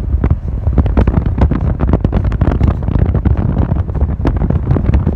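Wind rushing and buffeting over the microphone from a moving car, in irregular gusts, over a steady low rumble of the car on the road.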